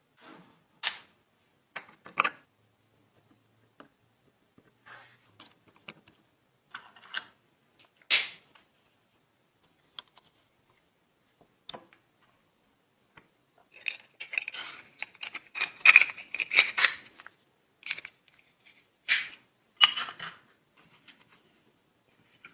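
Scattered clicks, taps and light scrapes of small metal parts and hand tools being handled on a bench, with a run of quick scraping strokes about two-thirds of the way through.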